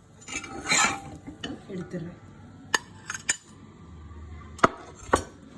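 Metal kitchen utensils handling a pan and plate: a scrape about half a second in, then several separate sharp clinks and knocks.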